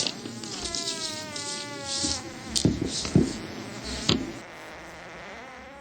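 A high buzzing whine whose pitch wavers up and down, fading out and returning near the end. Hissy bursts and three short thumps come in the middle.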